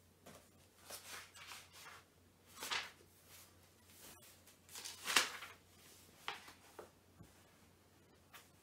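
Pages of a book being turned and handled: a few short papery swishes a second or two apart, the loudest about five seconds in.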